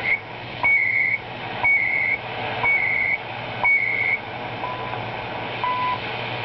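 Time-signal beeps from shortwave station CHU through a Philco 116B tube radio's speaker: a half-second tone once every second over static hiss and a low hum. The first four beeps are higher-pitched, and from about five seconds in they come lower.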